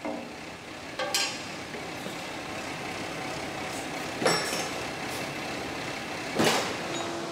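Steady workshop background noise with three short knocks and clatters as a railcar's detached brake hose, with its metal coupling head, is handled and set down on a steel tool cart.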